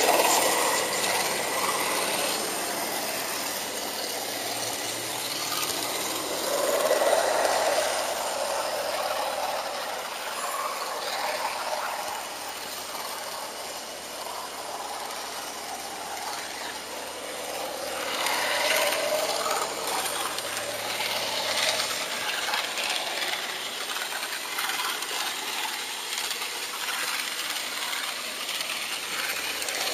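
HO-scale model train running along the track, heard from the camera riding on it: the steady mechanical rolling of small wheels on rails, louder for a few seconds around seven and around nineteen seconds in.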